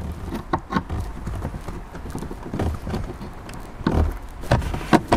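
Irregular clicks and knocks of a hand tool with a Torx T25 bit being fitted to and turning a bolt in a car's interior trim.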